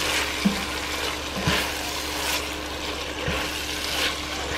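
Ground meat and tomato paste sizzling in a pan over a low flame, with a spoon stirring and scraping through it every second or so and a few soft knocks against the pan.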